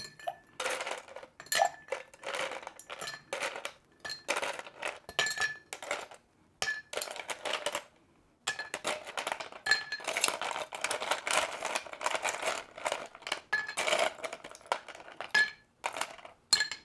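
Ice cubes picked up one after another with metal tongs and dropped into a cut-crystal mixing glass of Negroni, clinking against the glass and each other in an uneven series, some hits leaving the glass briefly ringing.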